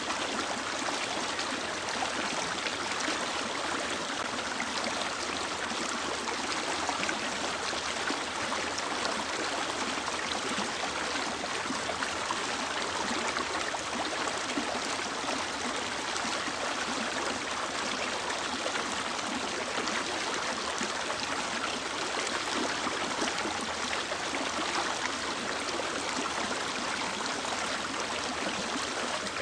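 A mountain river flowing over rocks, a steady rushing and gurgling of running water.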